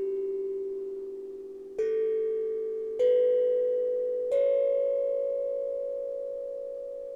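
Steel tongue drum struck with a mallet: three single notes about a second apart, each a step higher than the last as it climbs a major scale, every note ringing on long after it is struck.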